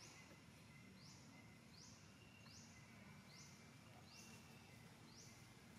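Near silence: faint outdoor background with a short, high rising call repeating a little more than once a second.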